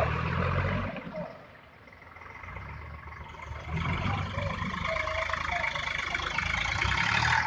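Eicher tractors' diesel engines running as the tractors drive by through mud. The engine sound is loud at first and fades about a second in, then another engine grows louder from about three and a half seconds in.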